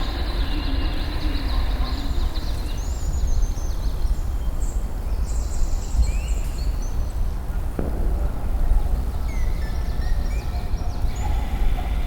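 Outdoor ambience: a steady low rumble with scattered short high chirps.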